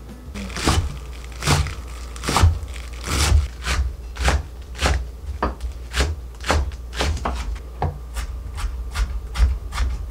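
Chef's knives chopping garlic chives and green onion on wooden cutting boards: a run of sharp knocks, about two a second.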